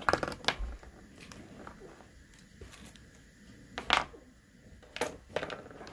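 A few sharp clicks and knocks from art supplies being picked up and handled, with faint rustling between them.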